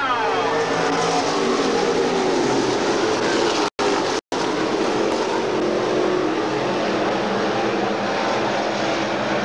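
A pack of IMCA stock cars' V8 engines running at race speed on a dirt oval, a steady dense engine noise. The sound cuts out twice, very briefly, a little before halfway.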